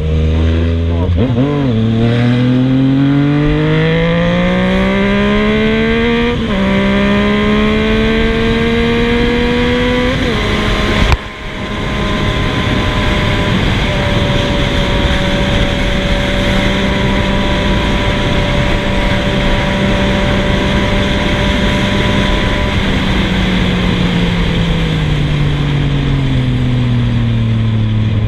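Yamaha MT-09's three-cylinder engine through a full stainless 3-into-1 Scorpion exhaust, accelerating through the gears while riding. The pitch climbs, drops at an upshift about six seconds in and climbs again, then comes a sharp crack near eleven seconds. After that it holds a steady cruise and falls off as the bike slows near the end.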